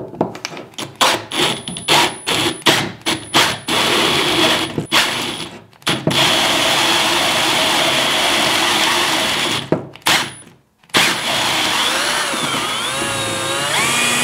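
Milwaukee cordless drill spinning a Kingrinder hand coffee grinder in place of its crank, grinding a handful of beans. For the first few seconds the drill runs in short stop-start bursts. It then runs steadily, cuts out briefly about ten seconds in, and its pitch wavers near the end, as the right torque and speed for the grinder are hard to hold with the drill.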